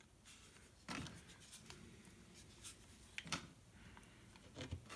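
Near silence with a few faint, brief clicks and taps of small objects being handled.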